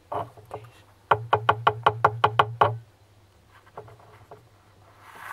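A fast, even run of about eleven sharp knocks on a hard surface, about seven a second, starting about a second in and stopping just before the three-second mark. A single knock comes at the very start and a few faint taps follow later.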